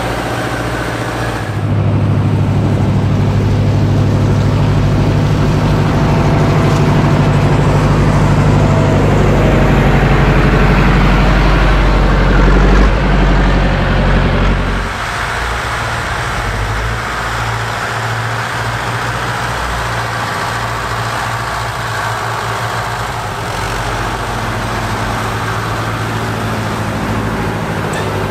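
Fortschritt tractors' diesel engines running as they push snow with front plough blades. The engine is louder and steadier through the first half, then after a sudden change about halfway through a somewhat quieter engine runs on.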